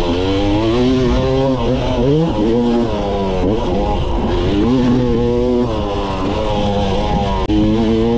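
Yamaha YZ250 two-stroke dirt bike engine under riding load, its pitch climbing and then dropping several times as the throttle is worked and the gears change.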